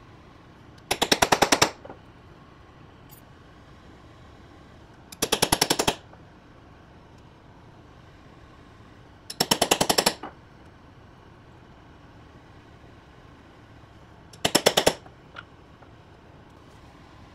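Hammer tapping a hollow steel punch through gasket material on a wooden block to cut bolt holes, in four short flurries of quick sharp strikes about four seconds apart.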